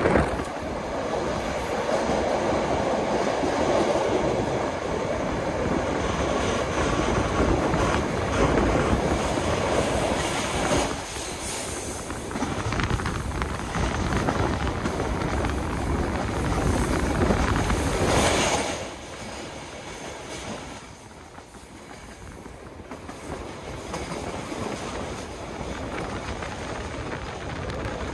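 Passenger train running on the rails, heard through an open carriage window: a steady rushing rumble of wheels and track. The noise drops off sharply about two-thirds of the way through, then slowly builds again near the end.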